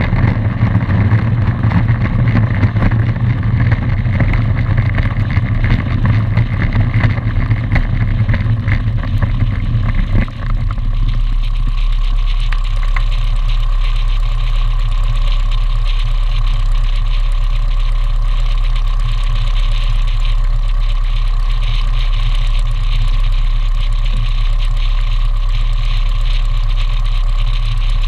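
Piston engine and propeller of a single-engine high-wing light aircraft, running while the plane taxis. About ten seconds in, the sound dips briefly as the plane comes to a stop. It then settles into a steady idle.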